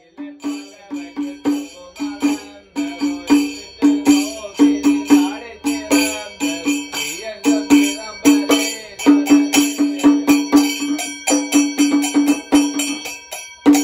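Percussion music: a drum beaten in quick, uneven strokes, each with a pitched thud, over steady ringing metal percussion like small bells or cymbals.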